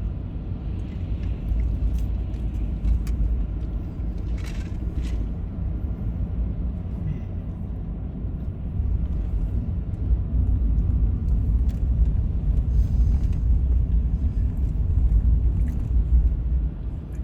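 Road and engine noise inside a moving car: a steady low rumble that grows louder about halfway through, with a few faint clicks.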